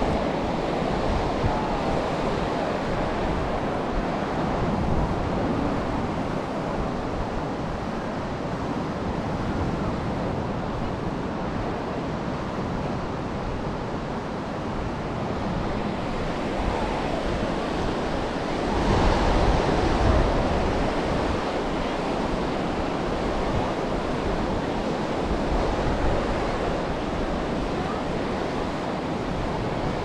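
Sea surf washing onto the beach in a continuous rush, with one louder wave breaking about two-thirds of the way through. Wind rumbles on the microphone underneath.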